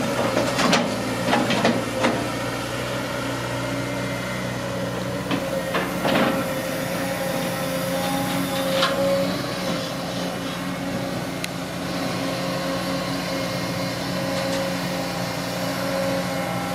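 CAT long-reach hydraulic excavator's diesel engine running steadily under working load as the boom and bucket drag weeds from the canal, with a few sharp knocks in the first two seconds and again around six seconds in.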